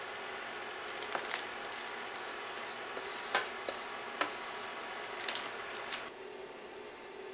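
Scattered sharp clicks and knocks as a silicone spatula and stainless steel mixing bowls are handled, with soft scraping and squishing of a thick mixture. A steady background hiss drops away about six seconds in.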